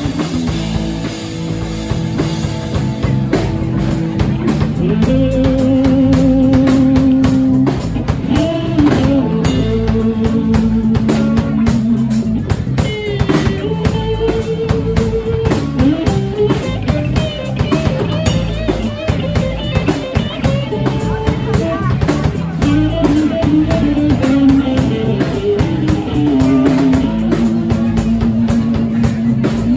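Live rock band playing a song: drum kit and guitars keep a steady beat, under a lead line of long held notes with vibrato.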